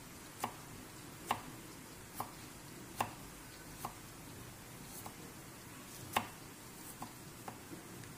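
Knife slicing shallots thinly on a cutting board: about a dozen sharp taps of the blade against the board, unevenly spaced, roughly one a second.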